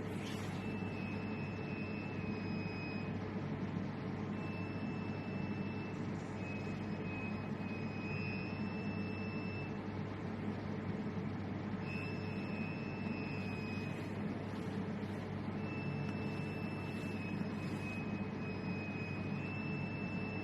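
Steady machine hum, with a high whine over it that comes and goes in stretches of one to three seconds and steps slightly in pitch.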